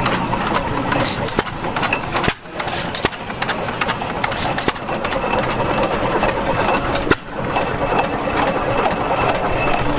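Antique show engines running, with many sharp clicks and knocks over a steady mechanical din; the sound drops out briefly twice, about two and seven seconds in.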